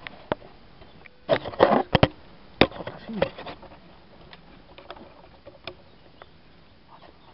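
Irregular wooden knocks and clatter, the rifle and gear bumping against wooden boards: a quick cluster of knocks about a second in, more around three seconds in, then only faint scattered ticks.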